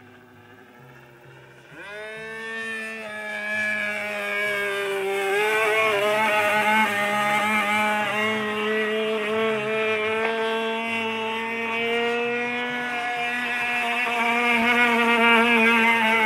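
Super Tigre G-51 two-stroke glow engine of an RC model plane comes in suddenly about two seconds in, rising in pitch, then runs at high speed with a pitch that wavers up and down.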